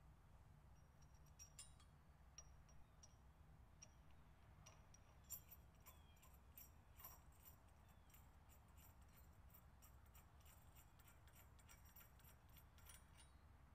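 Faint small metallic clinks and ticks of a lock washer and large nut being fitted and turned by hand onto a trailer ball's threaded shank, sparse at first and coming thick and fast from about five seconds in.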